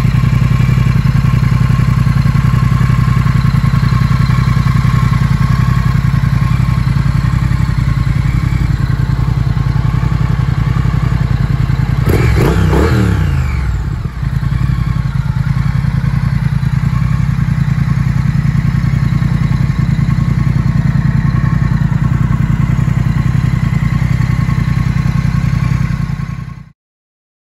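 2018 Triumph Thruxton 1200R's 1200cc parallel-twin engine idling steadily through aftermarket Vance & Hines exhaust pipes, with one quick blip of the throttle about twelve seconds in. The sound stops abruptly near the end.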